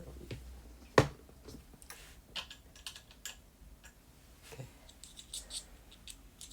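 Small scattered clicks and light rattles of a screwdriver bit being fitted into a screwdriver, with one sharper knock about a second in.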